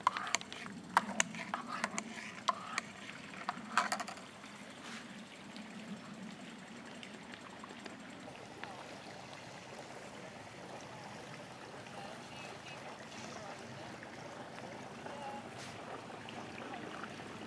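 A run of light clinks and knocks from a mug and camp cooking kit being handled while instant coffee is made, over for about four seconds in. After that only a faint, steady outdoor hiss remains.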